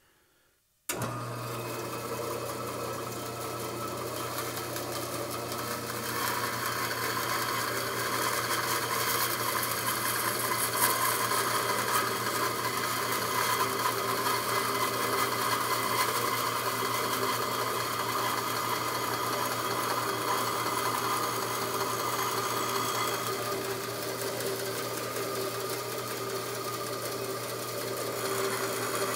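Bandsaw running with a steady motor hum, cutting in about a second in. Its blade cuts slowly through a block of curly maple, and the cutting noise is heavier through the middle and eases near the end.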